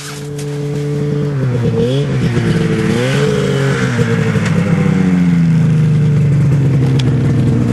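A motor engine running close by, its pitch dipping and rising twice in the first few seconds, then easing down and holding steady as it grows louder.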